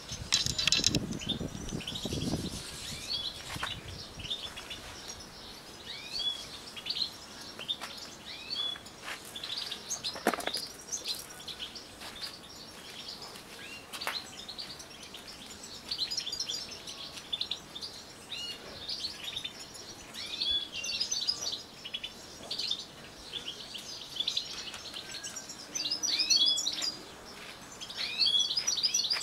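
A flock of European goldfinches chirping and twittering in many short high notes, with wings fluttering in the first few seconds.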